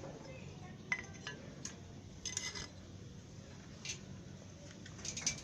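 Eurasian tree sparrows giving scattered short, sharp chirps: single notes about a second in and again near four seconds, with small clusters of several chirps about two and a half seconds in and near the end, over a low steady background hum.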